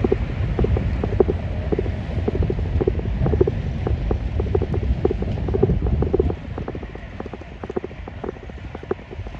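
Wind buffeting the microphone in heavy rain, a deep rumble with scattered raindrop clicks and regular low thuds about twice a second; it eases after about six seconds.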